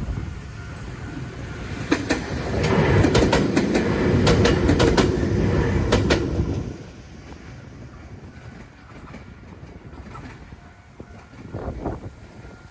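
Ryutetsu Nagareyama Line train passing over a level crossing, its wheels clacking over the rail joints. It swells about two seconds in, stays loud with a quick run of clacks for about four seconds, then drops away to a faint rumble.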